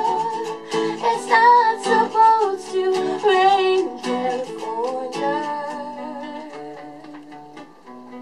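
A woman singing over an acoustic guitar. Her voice stops a little past halfway, and the guitar plays on alone, fading out as the song ends.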